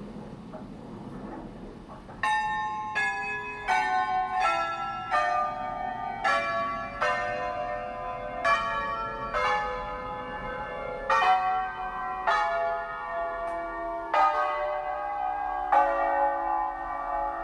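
Tower bells played as a tune, heard from inside the bell tower. Starting about two seconds in, a bell of a different pitch is struck roughly once a second, each one ringing on under the next.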